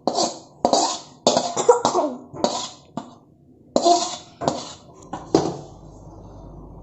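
A woman coughing in a run of about nine sharp coughs, roughly two a second, which stop about five and a half seconds in, leaving a faint low hum.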